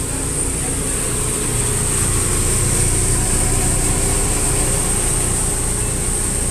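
Long Island Rail Road M3 electric multiple-unit train rolling slowly into the platform and slowing to a stop. It makes a steady low rumble with a steady high-pitched hiss above it.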